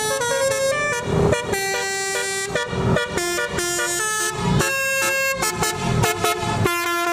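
Tour bus's multi-tone 'telolet' horn of the Basuri kind playing a quick melody, its notes stepping from pitch to pitch in short phrases.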